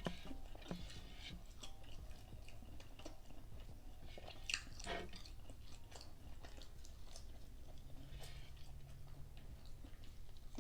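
A person chewing food close to the microphone, faint wet mouth sounds and smacks, with a couple of sharper clicks about four and a half to five seconds in.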